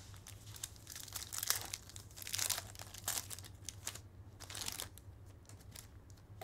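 Foil trading-card pack wrappers crinkling in several short bursts as the packs and cards are handled and opened.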